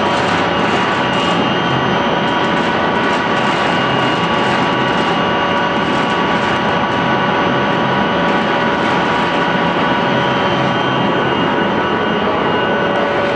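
YGKJ560 vertical sawdust pellet mill running under load as it presses sawdust into pellets: a loud, steady machine din with constant whining tones over it.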